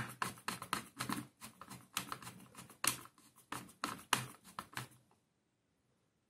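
A screwdriver driving a screw into a soldering gun's plastic housing: a quick, irregular run of small clicks that stops about five seconds in.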